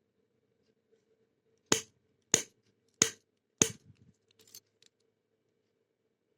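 Four sharp clicks about two-thirds of a second apart, then a few faint light ticks, from a padlock being worked with a lock pick and tension wrench while picking it open.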